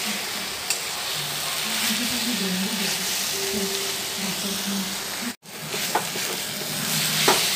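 Mushroom masala frying in a kadai on a low flame, sizzling steadily while a spatula stirs and scrapes through it, with a few sharp clicks of the spatula against the pan. The sound cuts out for an instant about five seconds in.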